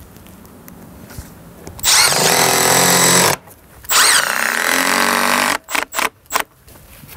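Cordless driver driving screws through timber battens into a timber-frame wall: two runs of the motor of about a second and a half each, starting about two and four seconds in, each opening with a rising whine, then three quick short bursts near the end.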